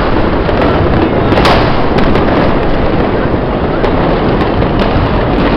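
Dense, continuous barrage of fireworks and firecrackers going off all around: many sharp cracks over a steady crackling din, with a louder bang about a second and a half in.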